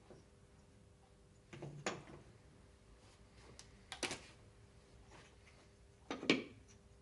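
Small wooden pieces clacking against each other and being set down on a wooden cabinet top: three short bursts of wooden clatter, about two seconds apart.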